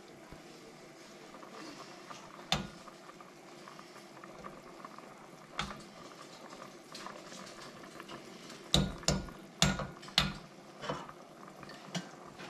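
Chicken stew bubbling in a stockpot while a metal spoon stirs it, with sharp clinks of the spoon against the pot: single clinks now and then, and a quick run of four or five about three-quarters of the way through.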